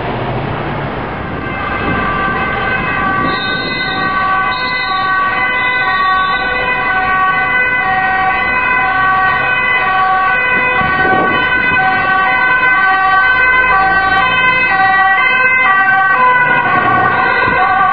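Two-tone siren of a Dutch ambulance on an emergency run, alternating between two pitches and growing louder as it approaches, over street traffic.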